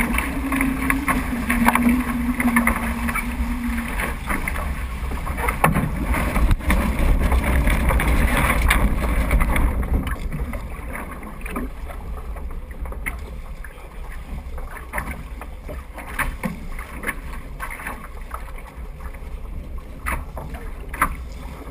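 Wind buffeting the microphone and water rushing and splashing past the bow of a Weta trimaran sailing fast. About ten seconds in, the boat slows and the noise drops, leaving lighter slaps of water against the hull.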